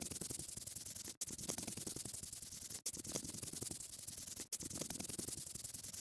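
Scratchy coloring sound effect of a paintbrush rubbing on a surface, played as a loop that breaks off three times for an instant, about every one and a half seconds, before stopping abruptly.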